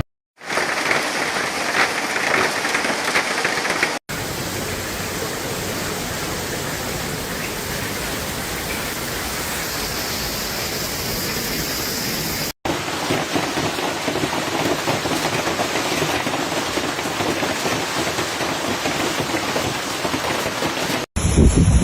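Heavy storm downpour pelting down in a steady dense hiss, heard in three stretches joined by abrupt cuts, about four seconds in and again about twelve and a half seconds in.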